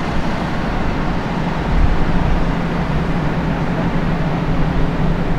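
Engines running steadily at the speedway: a constant low drone under a rushing outdoor noise, with no passing or revving.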